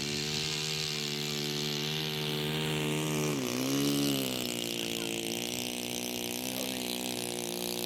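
Small model-aircraft engine running steadily at high speed. Its pitch dips briefly about three and a half seconds in, then picks up again.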